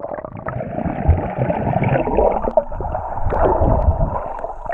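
Muffled underwater sound from an action camera held below the sea surface: bubbling and churning water with uneven low rumbling, all high sounds cut away.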